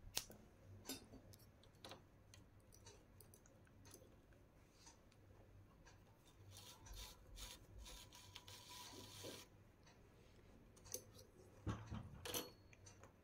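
Faint scissors snipping through knitting yarn, with scattered light clicks and rustles of hands handling the yarn on the metal needle bed of a knitting machine. A short rasp comes a little past halfway, and a cluster of clicks near the end.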